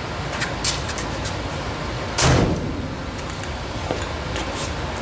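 1966 Ford F100's passenger door being swung open, with one short, loud metallic clunk about two seconds in, over steady background noise.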